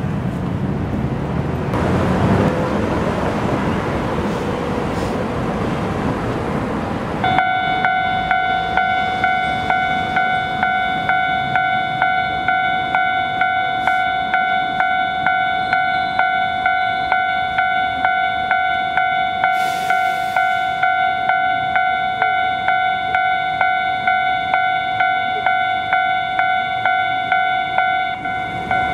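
Japanese level-crossing warning bell ringing in an even two-tone pattern, about two strikes a second, as the crossing closes for a tram. Before it, for the first several seconds, there is loud rumbling passing-vehicle noise that breaks off abruptly.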